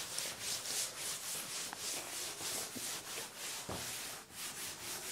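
Blackboard duster rubbing chalk writing off a chalkboard in quick back-and-forth strokes, about four a second, with a short pause near the end.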